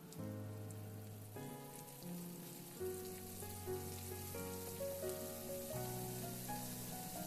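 Flour-coated mushroom pieces deep-frying in hot oil in a wok, a steady sizzle as more pieces are dropped in. Soft piano music plays along with it.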